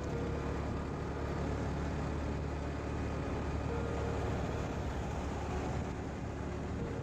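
Motorcycle riding along a road: steady engine and road noise mixed with wind rush.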